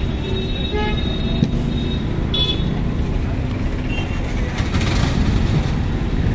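Busy street-market ambience: a steady rumble of traffic and crowd, with a short vehicle horn toot about two seconds in.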